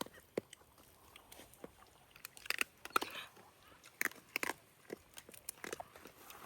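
Irregular crunching and cracking, like roasted guinea fowl meat and bones being bitten and chewed, with the loudest crunches about halfway through.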